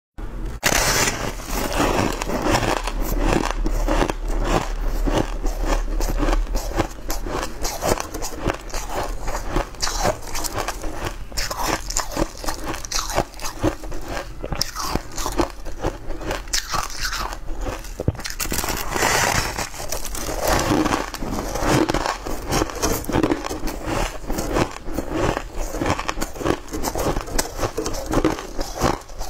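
Close-up eating sounds: a person biting into and chewing a frosty white-and-blue layered ice cake, in a dense run of crisp crunches.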